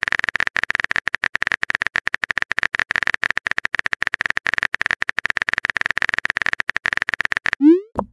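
Texting-app keyboard typing sound effect: rapid electronic key clicks, about ten a second, as the next chat message is typed. Near the end comes a short rising 'bloop' message-sent tone.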